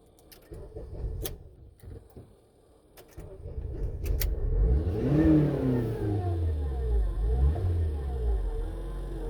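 A 2008 Honda Accord's 2.4-litre four-cylinder engine is started after a few light clicks. About three seconds in it cranks and catches, flares up in revs and then drops back to a running idle. It is started for a crankshaft pattern relearn after a crank sensor replacement, and the owner says it runs fine without a real misfire.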